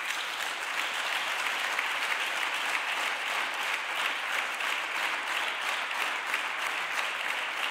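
Steady applause from the senators in the chamber: many people clapping together without a break.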